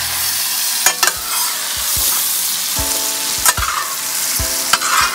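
Sliced bell peppers, onions and mushrooms sizzling in butter and olive oil in a steel Fire Disc wok-style cooker, stirred with a metal spatula that clacks and scrapes against the pan a few times.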